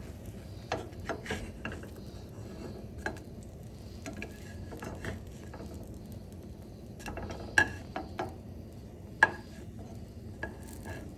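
Kitchen utensils clinking and knocking against a pan during cooking: scattered light taps, with two sharper knocks in the second half, over a low steady background.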